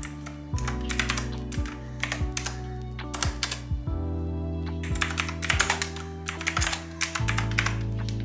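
Background music with a steady beat, a low thud about once a second, over irregular clusters of quick sharp clicks like tapping.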